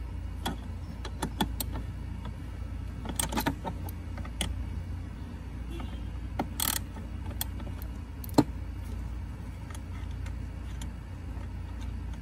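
Scattered small metal clicks and clinks from hand work on an engine bay, as bolts are twisted out by hand and set down, with one sharp click about eight seconds in. A steady low rumble runs underneath.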